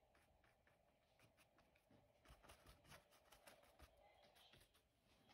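Very faint, quick scratchy strokes of a paintbrush dabbing paint onto denim fabric, several a second, in short runs.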